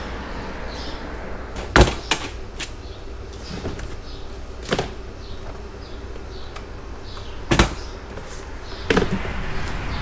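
A handful of sharp knocks and bangs, like doors or boxes being handled, the loudest about two seconds in and near the eighth second. Faint bird chirps sound behind them.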